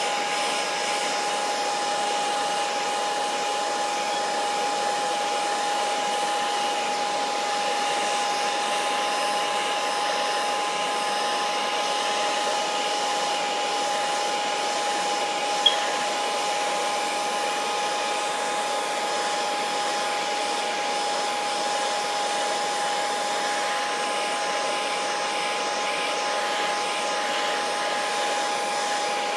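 Heat gun blowing steadily with an even whine, heating the adhesive around a phone's glass screen to loosen it. A single sharp click about halfway through.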